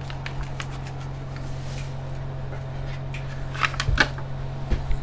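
Light clicks and taps of a pot and utensils being handled on a stovetop, with a few sharper knocks about three and a half seconds in and again near the end, over a steady low hum.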